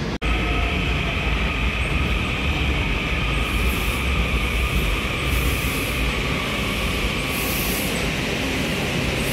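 Washington Metro railcar running through an underground station: a steady rumble with a high steady whine over it, and short hisses every couple of seconds. The sound drops out briefly just after the start.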